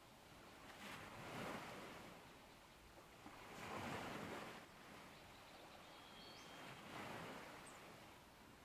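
Faint ocean surf, a soft wash that rises and falls in slow swells about every three seconds.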